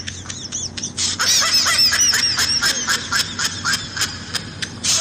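High-pitched comedic laughter sound effect: a fast run of short 'ha' syllables, about five a second, getting louder about a second in.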